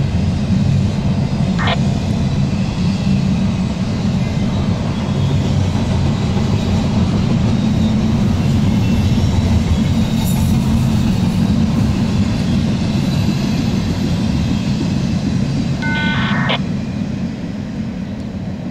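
Norfolk Southern double-stack intermodal train's well cars rolling past: a steady rumble of wheels on rail, with a brief high wheel squeal about two seconds in and another near the end. The sound dies down as the last car goes by.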